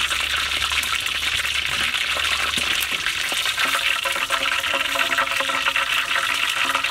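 Whole battered chicken deep-frying in a wok of hot oil, sizzling and crackling steadily.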